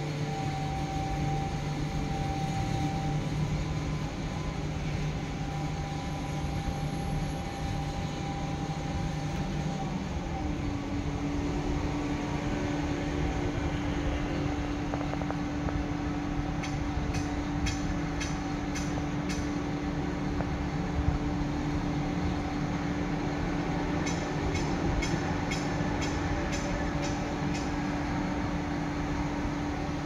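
Steady drone of heavy diesel machinery: a concrete mixer truck running with its drum turning as it pours concrete, alongside an excavator. The hum of the engines steps up in pitch about ten seconds in, and short runs of light clicking come twice in the second half.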